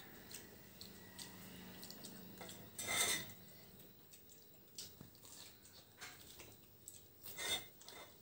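Quiet eating sounds from children biting into noodle-filled buns, with faint handling of steel plates; a short louder noise about three seconds in and another near the end.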